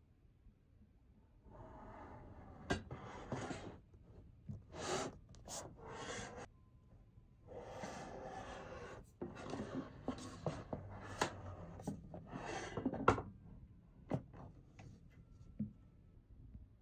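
Handling noise from a Formd T1 mini-ITX PC case and its fitted parts being turned over and shifted by hand: bursts of rubbing and scraping with several sharp clicks and taps, the loudest tap near the end.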